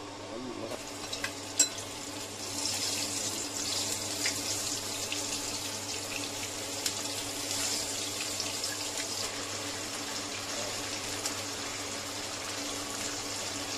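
Cornstarch-coated oysters sizzling in oil in a nonstick wok as they are laid in, after a few sharp clicks; the sizzle swells about two and a half seconds in and then holds steady. A faint steady low hum runs underneath.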